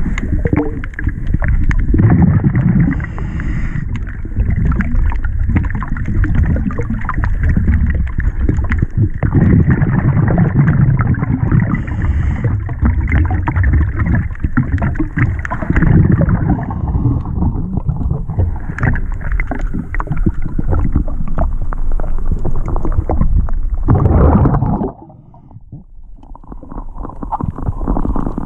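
Muffled underwater rumble and crackle of water noise and handling on the camera during hull cleaning by a diver. It drops away for about two seconds near the end, then comes back.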